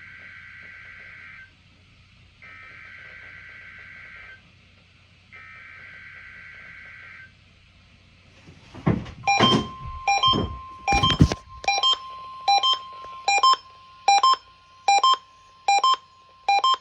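NOAA Weather Radio test alert: three bursts of SAME digital header data tones, each a warbling two-pitch chirr about 2 s long. About eight seconds in there are a few loud bursts of noise, then the steady 1050 Hz warning alarm tone starts, with a sharp beep repeating about every 0.8 s over it.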